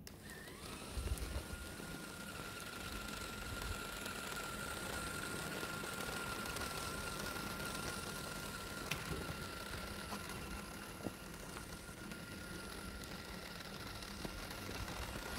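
Small DC gear motors of a homemade toy car running with a steady high whine. The whine rises briefly as they spin up about half a second in.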